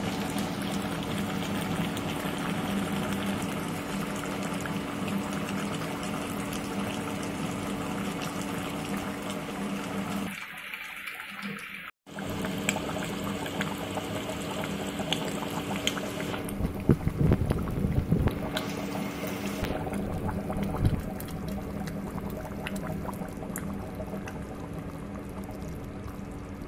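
Pork curry with potatoes bubbling and sizzling in a cooking pot: a steady watery hiss over a steady low hum. It drops out briefly about halfway through, and a few louder knocks follow in the second half.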